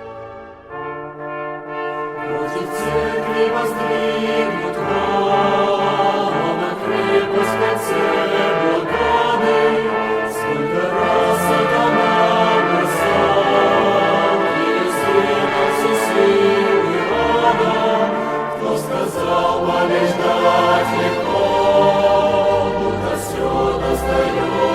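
Choir singing with brass band accompaniment. Sustained brass chords open it, and the full choir and brass come in about two seconds in.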